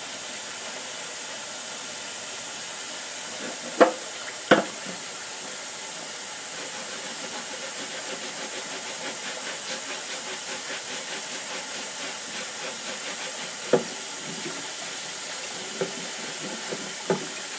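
Kitchen tap running into the sink, a steady hiss of water, with dishes knocking sharply against each other or the sink twice about four seconds in and a few more times near the end.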